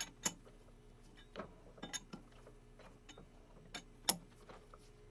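Sharp metallic clicks and clinks, about ten at uneven intervals, as a chuck key is worked in a three-jaw lathe chuck to close the jaws on a bar of 4140 pre-hard steel round stock. A faint steady hum runs underneath.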